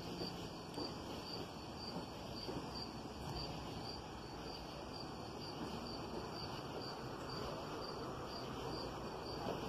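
Crickets chirping in a steady rhythm, about two chirps a second, over a faint low hum of background noise.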